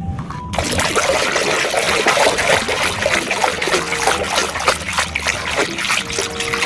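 Running water splashing and trickling over a muddy toy military vehicle as it is washed, starting about half a second in.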